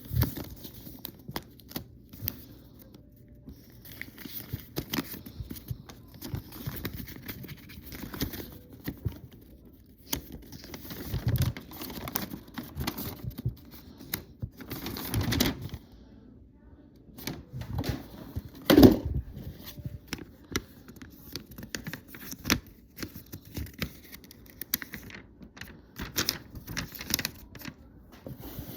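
Toy packaging being handled and unpacked: irregular clicks, rustling and tearing of cardboard and plastic. One louder rustle comes a little past two-thirds of the way through.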